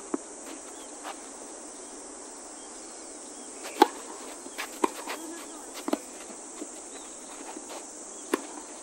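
Tennis rally: a tennis ball struck by racket strings and bouncing on the hard court, a sharp pop about four seconds in followed by several more roughly a second apart. A steady high insect buzz runs underneath.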